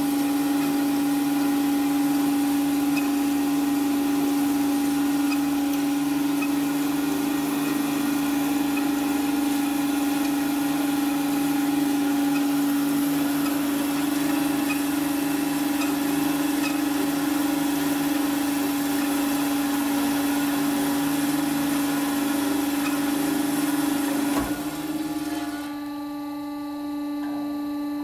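Thomas Super Trad 350 DG semi-automatic band saw running, a steady machine hum with a strong low tone under a broad hiss. About 24 seconds in the hiss drops away, leaving a quieter hum of steady tones.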